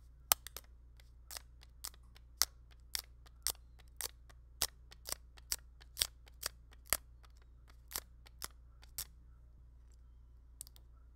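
A dust-removal sticker dabbed again and again on an iPad's glass screen, giving a short, sharp tacky click each time it touches and lifts, about two a second. The clicks stop about nine seconds in.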